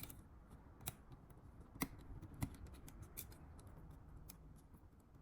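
Faint scattered clicks and light taps of fingers fitting a small flat ribbon cable into a plastic connector on a circuit board.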